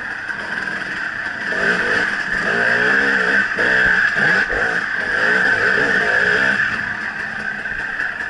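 Dirt bike engine on a trail ride, revved up and down over and over for several seconds in the middle, with a steady high-pitched whine throughout.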